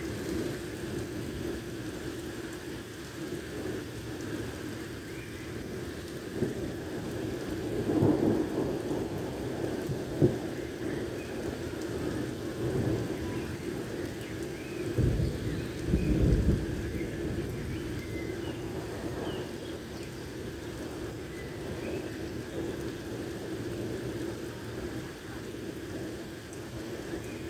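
Heavy rain falling steadily on a wet street, with low rumbles of thunder, the strongest from about fifteen to seventeen seconds in. A single sharp knock comes about ten seconds in.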